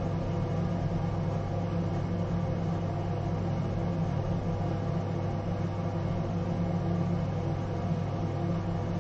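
Steady low mechanical hum with a droning tone that does not change.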